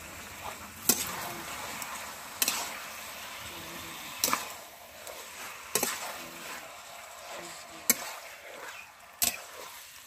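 Chicken cooking in spice paste in a pan, sizzling steadily as it is stirred, with the spatula knocking against the pan six times, about every second and a half.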